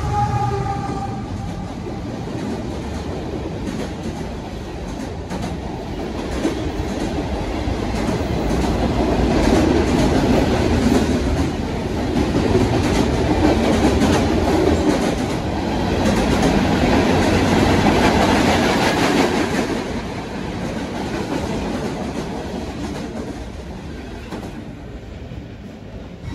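Union Pacific freight train passing at close range. A locomotive's horn tails off in the first second. Then the freight cars roll by with a steady wheel rumble and clatter that swells and eases, fading over the last several seconds as the end of the train moves away.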